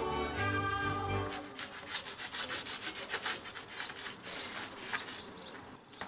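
A garlic clove rubbed hard over the crisp surface of a fried brown-bread slice: a run of quick dry rasping strokes, several a second, fading near the end. Background music plays for about the first second, then cuts off.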